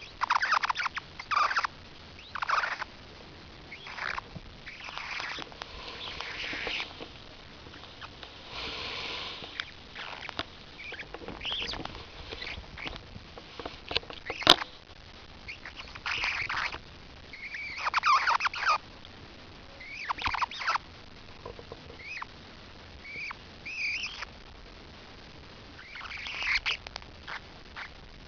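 A parrotlet making a strange, repeated noise: short squeaky, chattering bursts with quick up-and-down pitch glides, coming every second or two. There is a single sharp click about halfway through.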